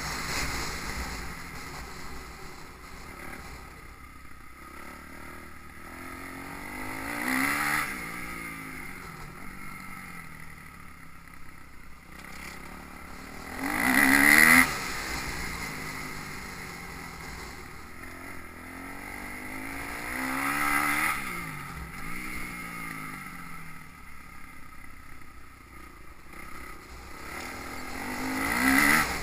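Motocross bikes revving past one after another, about four times, each engine rising then falling in pitch as it goes by; the pass about halfway through is the loudest.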